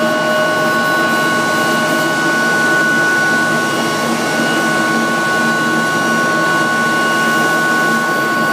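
Steady drone of the pipe-coating booth's machinery, fans and air equipment running, with two constant high-pitched tones over a lower hum.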